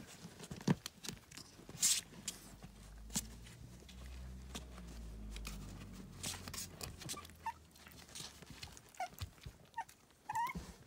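Toy poodle puppy scrabbling at a cardboard box as it climbs over the side: quick scratches and clicks of paws and claws on cardboard. Near the end come a few short, high rising squeaks from the puppies.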